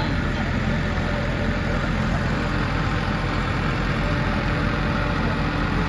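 Tractor's diesel engine running steadily with a low, even hum.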